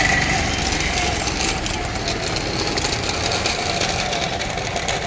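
Steady running of motor-traffic engines on a city street, with at least one small engine close by.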